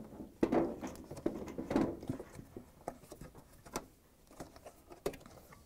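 Rubber air hose being twisted and worked off its plastic nozzle on a washing machine's outer tub: irregular rubbing, scraping and light knocks of hands on hose and plastic.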